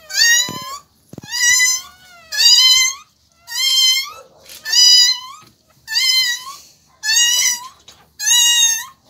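Newborn Siberian Husky puppy crying in short, high-pitched squeals, about one a second, each rising a little in pitch.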